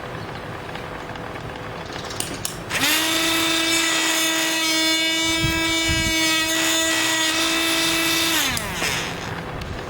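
Electric drill motor spinning up to speed about a quarter of the way in, running with a steady high whine for about five and a half seconds, then winding down near the end.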